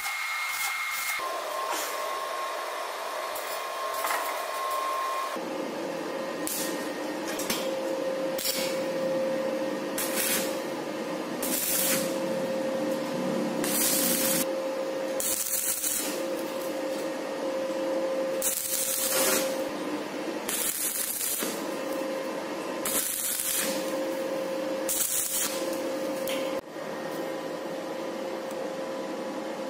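Shielded metal arc (stick) welding on square steel tubing: the arc crackles and sizzles in runs lasting under a second to about a second, broken by short pauses as each tack is laid, over a steady whine.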